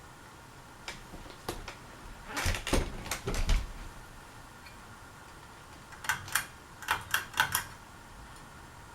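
Hunter Beacon Hill ceiling fan running steadily, with two clusters of irregular sharp clicks and light knocks, the first in the first few seconds and the second about two-thirds of the way through.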